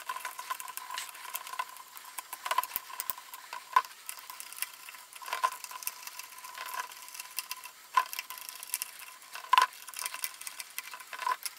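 Scratchy rustling of acoustic mesh fabric being pulled back over a plastic speaker housing, then a screwdriver turning out small self-tapping screws, with scattered small clicks and scrapes. A faint steady whine sits underneath.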